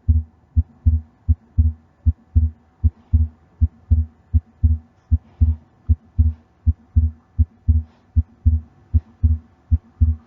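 Heart sounds through a stethoscope, a steady 'tun-trun' rhythm of paired beats. The second heart sound is split and the split stays fixed, with a faint, barely perceptible systolic murmur. A wide, fixed split like this can point to an atrial septal defect.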